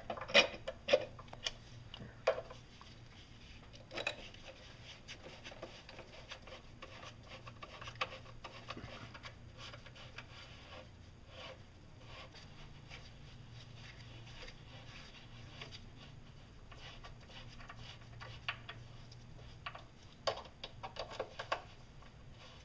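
Small metal clicks and knocks as an aluminium throttle-body adapter plate is handled against the intake manifold, then faint scraping and ticking as Allen screws are turned in with an Allen key. The sharpest clicks come in the first few seconds and again in a short cluster near the end.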